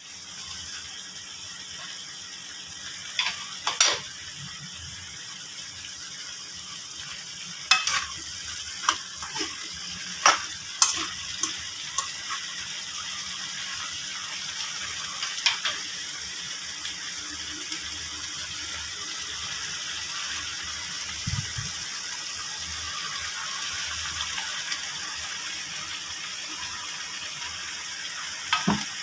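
Broccoli, capsicum and beef sizzling in a hot wok while being stir-fried: a steady high hiss, with scattered sharp clacks of a utensil against the pan, in clusters a few seconds in, around the middle and near the end.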